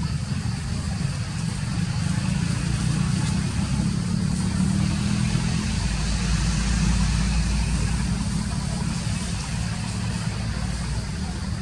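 Steady low rumble of an idling engine, deepening about halfway through, with a constant hiss over it.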